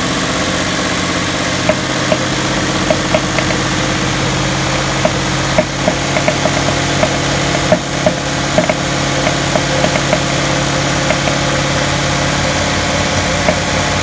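Ford 5.0-litre V8 (2018 or newer) running steadily under load at about 1800 rpm, with irregular sharp pops, a few a second, over the engine note. This backfiring, popcorn-like popping comes from a leaking direct-injector seal on cylinder number 6.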